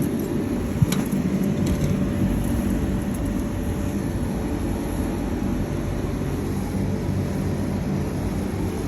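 York air-conditioning condenser unit running with a steady hum, with one sharp click a little under a second in.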